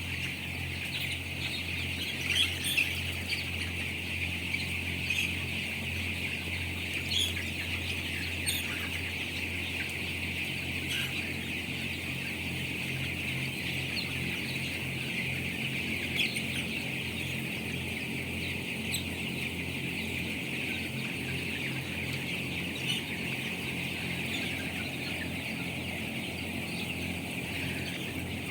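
A large flock of 17-day-old chickens in a poultry house, calling and peeping together in a dense, continuous chorus with occasional louder single calls standing out. A steady low hum runs underneath.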